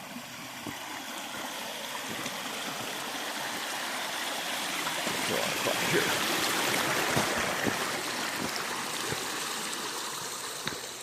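Shallow creek water running over rocks, swelling to its loudest a little past the middle and easing off toward the end, with scattered soft knocks.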